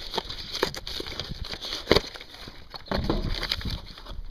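Packaging and small items handled during an unboxing: scattered clicks and rustles, a sharper click about two seconds in, then low rumbling handling noise near the end.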